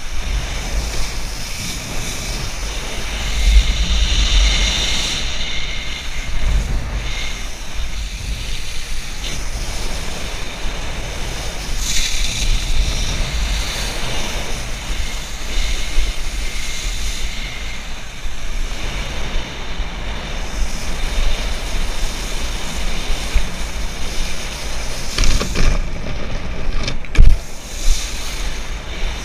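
Wind buffeting an action camera's microphone and water spray hissing off a wakeboard as the rider is towed along, a steady rushing noise with low rumble. A couple of sharp knocks come near the end.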